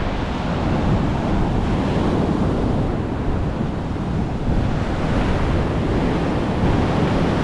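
Heavy Atlantic surf breaking on the beach, with strong wind buffeting the microphone in a steady, dense rumble.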